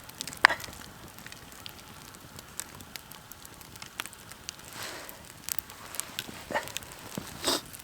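Campfire crackling with irregular sharp pops, the loudest about half a second in and several more near the end.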